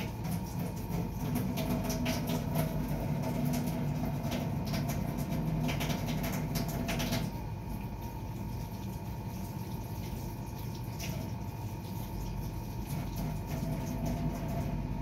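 Cat eating wet food from a bowl, chewing and licking in a quick run of small wet clicks for about the first seven seconds, then only a few clicks after that.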